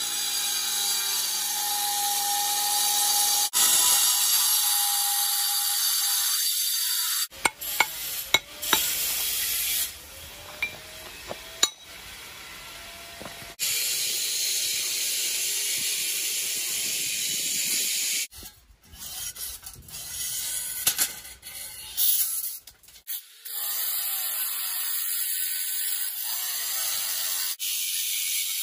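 Angle grinder with a cutting disc cutting into a stone slab: a steady high-pitched grinding hiss over the motor's whine. It stops and starts several times, with short quieter stretches holding a few clicks in between.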